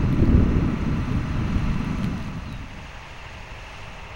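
Low rumble of road traffic going by, loud for the first two seconds and then fading away.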